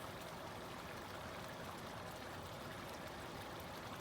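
Faint, steady hiss of a pan of chicken curry simmering on high heat.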